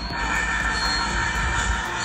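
Music for Burmese dance playing, with a long high note held through.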